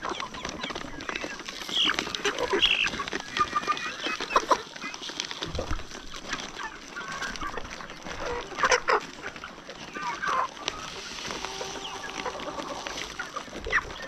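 A flock of brown hens clucking while they crowd in and feed, with many short calls overlapping and scattered sharp ticks.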